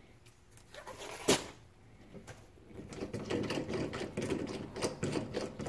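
A sharp click about a second in. From about halfway on, a dense run of rapid clicking and rattling as a finished wooden handle is twisted off its screw-on jig at the lathe headstock.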